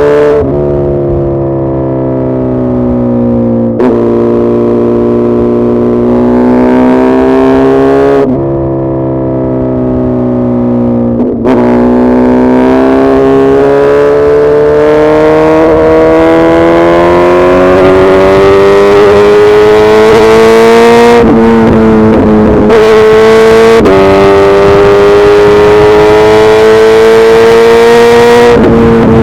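Suzuki Hayabusa Gen3's 1340 cc inline-four engine under way. Its note first eases off slowly, then climbs steadily under acceleration, with brief breaks and small drops in pitch at gear changes.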